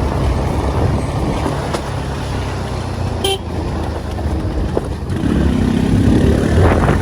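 A vehicle engine running with a steady low rumble. A short horn toot sounds about three seconds in, and a pitched rising note follows near the end.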